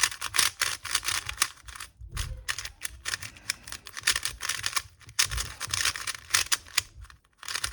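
Moyu RS3 2020 3x3 speed cube being turned fast by hand, its plastic layers clicking and clacking in quick runs of turns with a few brief pauses.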